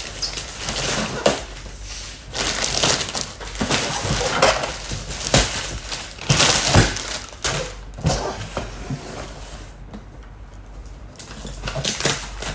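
Packaging being crunched and crinkled in irregular bursts as a pressure cooker is unpacked, with a few sharp knocks.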